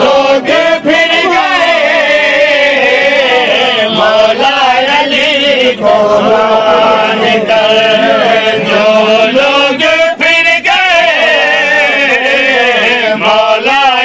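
Unaccompanied male voices chanting an Urdu qasida in praise of Imam Ali, a loud, continuous melodic recitation with long held, wavering notes.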